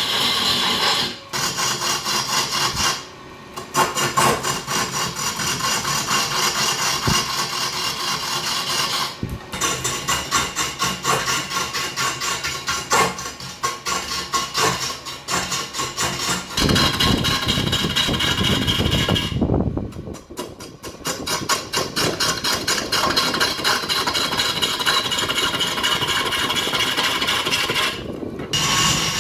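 A lathe tool cutting a large log spinning on a wood lathe. The sound is a steady scraping with a fast, even rhythm of fine strokes, and it breaks off briefly several times.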